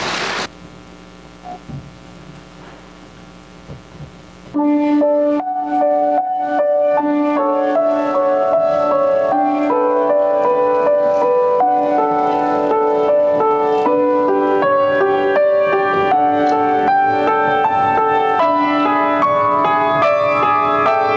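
Quiet concert hall with a few soft knocks, then about four and a half seconds in a grand piano starts playing the accompaniment that opens a choral song, a run of clear single notes over sustained chords.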